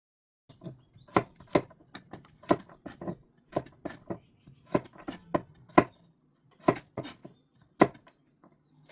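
Knife chopping on a cutting board: sharp, irregular knocks about two a second, starting about half a second in.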